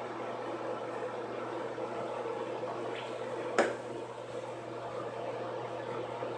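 Steady room hum and hiss, with one short sharp click about three and a half seconds in.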